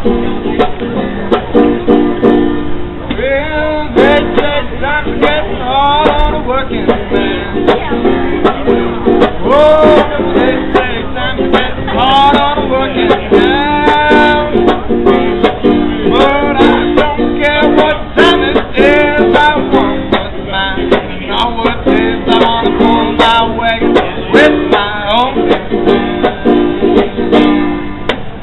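Banjo strummed in a quick, steady rhythm, with a man singing over it from about three seconds in.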